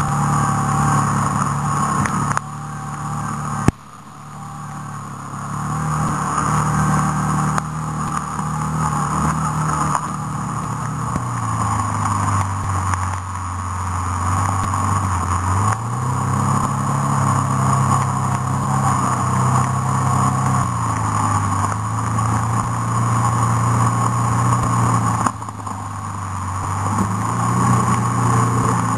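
A vehicle engine running under way, heard from on board. Its note steps down and up several times as it changes speed and gears. Its level drops sharply twice, near the start and near the end, as the throttle comes off.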